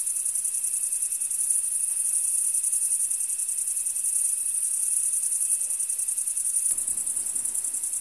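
Crickets chirping in a steady, high-pitched chorus.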